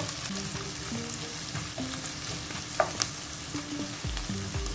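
Sliced onions and green chillies sizzling in hot oil in a nonstick pan, stirred with a wooden spatula. A couple of sharp clicks come about three seconds in.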